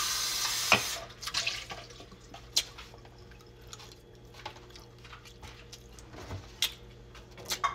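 A loud slurp of drink from an aluminium can, lasting about a second at the start and ending in a sharp click. Then quieter, scattered clicks and mouth noises of eating spaghetti with a plastic fork off a paper plate.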